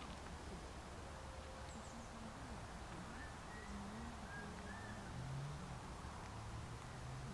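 Faint outdoor background: a low steady rumble, with a few faint short chirps near the middle.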